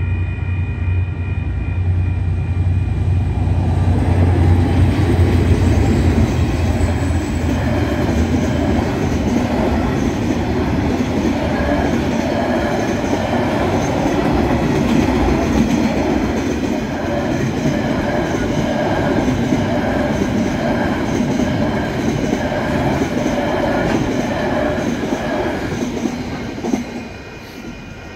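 Two KiwiRail DFT-class diesel-electric locomotives pass with a deep engine rumble in the first few seconds. Then a long line of freight wagons rolls by with a rhythmic clickety-clack of wheels over the rail joints, dropping away as the end of the train passes. Level-crossing warning bells ring steadily underneath and are heard clearly again once the train has gone.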